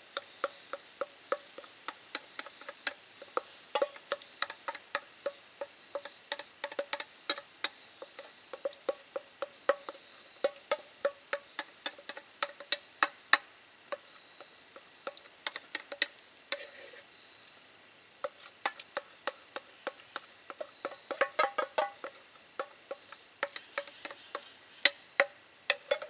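A spatula scraping and tapping against the inside of a stainless steel mixing bowl as batter is scraped out. It makes quick irregular clicks, a few a second, each with a short metallic ring from the bowl, with a brief lull about two-thirds of the way through.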